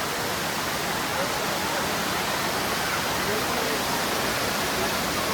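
Steady rush of a monsoon waterfall, with faint voices of a crowd under it.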